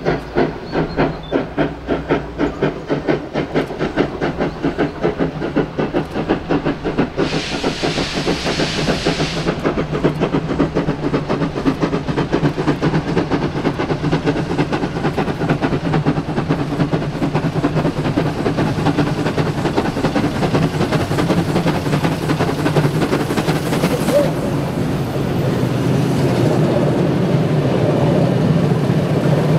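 Steam locomotive working hard under load, its exhaust beats quickening until they blend into a steady rumble. A burst of hissing steam lasts about two seconds, about seven seconds in.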